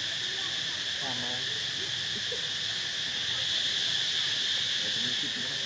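Insects droning steadily in a high, even pitch, a continuous chorus of outdoor insects.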